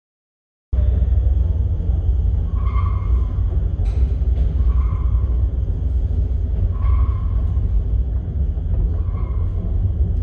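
Paternoster lift in travel: a loud, steady low rumble that starts suddenly just under a second in, with a short pitched squeak recurring about every two seconds.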